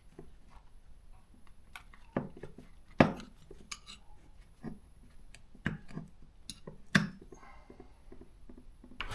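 Hand tools and small chainsaw parts clicking and clacking as they are handled and set down on a bench, in irregular taps with sharper knocks about two, three, six and seven seconds in.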